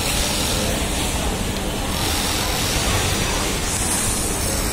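Steady whirring of industrial sewing machines across a garment-factory floor, including an overlock machine at work on fabric. A higher hiss comes up near the end.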